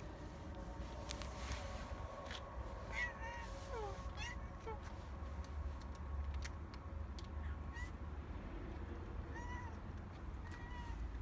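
Stray tabby cat giving several short, arching meows, spaced a second or more apart, with a few sharp clicks between them.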